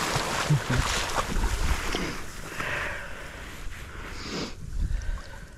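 Wading through shallow salt-marsh water and tall marsh grass: stems brushing against clothing and water sloshing, with wind rumbling on the microphone and a brief louder swish about four seconds in.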